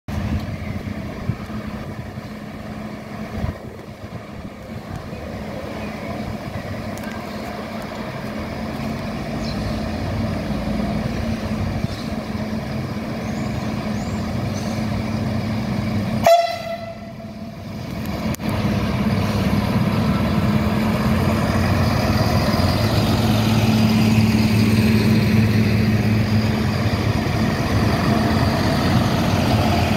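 Siemens Desiro diesel multiple unit pulling into the platform, its diesel engines running with a steady low hum that grows louder as it comes close. About halfway through, one short, sharp blast on the train's horn.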